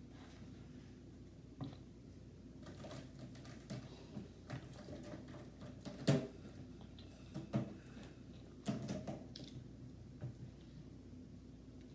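Close-up eating sounds: chewing and mouth smacks with irregular soft clicks, the loudest about six seconds in.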